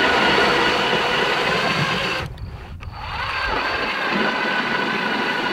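Power ice auger drilling through lake ice, its motor giving a steady whine. It stops about two seconds in, then spins up again with a rising whine and runs on steadily.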